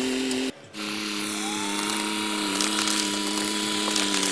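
Small electric motor of a homemade miniature wheat thresher running with a steady whine. It cuts out briefly about half a second in, then whines again, and a thinner, higher tone rises and holds about a second in.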